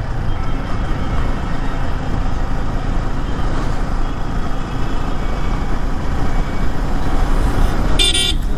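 Yamaha R15 V3's 155 cc single-cylinder engine running on the move, heard as a steady low rumble of riding noise. A vehicle horn toots once, briefly, near the end.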